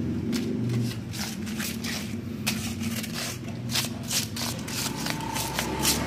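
Irregular scratchy sweeping strokes across rough concrete, a couple a second, over a steady low hum.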